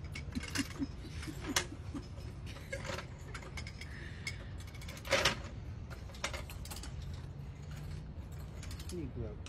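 Irregular metallic clicks and clanks of a hand tool being worked under a truck's front end, with the sharpest clank about five seconds in.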